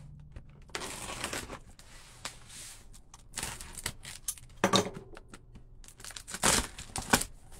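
Packing tape on a cardboard shipping box being cut with scissors and torn off, with irregular crinkling and rustling of tape and cardboard; the two loudest rips come about five and six and a half seconds in.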